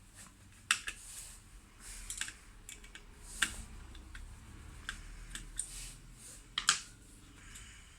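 Scattered sharp clicks and taps of a screwdriver and small metal parts being handled as the screws holding a laptop's CPU heatsink are taken out and the heatsink is lifted off. The loudest clicks come a little under a second in, about three and a half seconds in, and as a double click near six and a half seconds.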